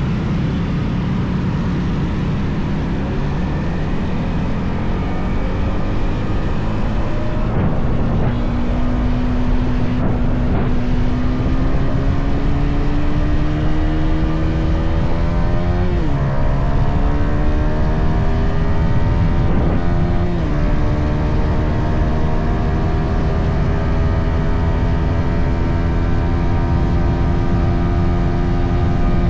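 Yamaha XSR 155 single-cylinder four-stroke on its stock exhaust, accelerating through the gears. The engine pitch climbs steadily, drops sharply at an upshift about sixteen seconds in and again about twenty seconds in, then holds nearly steady at cruising speed, over a constant low rush of wind.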